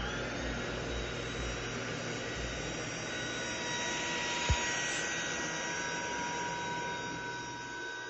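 FABULETTA cordless stick vacuum's brushless motor running with a steady high whine and rush of suction air as it picks up hair from a hard floor. The whine rises as the motor comes up to speed at the start. There is a single brief knock about four and a half seconds in.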